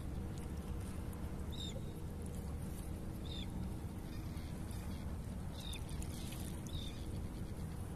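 Four short, high bird calls a second or two apart over a steady low rumble of wind and sea.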